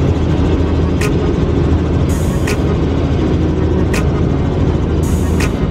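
Helicopter cabin noise in flight: a loud, steady low drone of the rotor and engine. A short sharp tick recurs about every second and a half.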